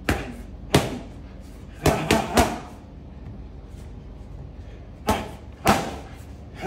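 Punches landing on boxing focus mitts: two single smacks, a quick three-punch combination about two seconds in, then two more single smacks near the end.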